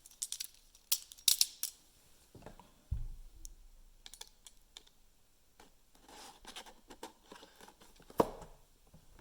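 A cardboard trading-card blaster box being opened by hand: scattered scratches, rustles and small clicks of the packaging. There is a dull thump about three seconds in and a sharp knock near the end.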